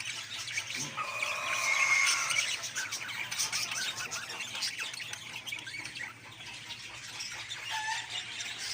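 Budgerigars chirping and chattering, a busy stream of short chirps with one louder warbling call about a second in.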